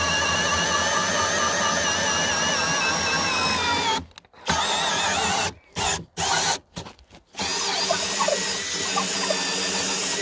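Cordless drill running a long spiral wood auger bit into the end grain of a log, a steady motor whine. About four seconds in it stops, starts again in several short trigger bursts, then runs steadily with the bit spinning free outside the hole.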